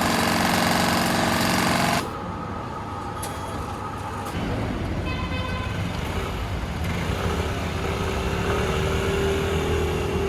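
City street traffic. A loud, fast rattle stops suddenly about two seconds in, followed by general traffic noise with a steady engine drone in the last few seconds.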